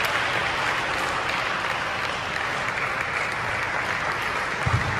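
Spectators applauding at the end of a table tennis game, a steady patter of clapping. There is a dull thump near the end.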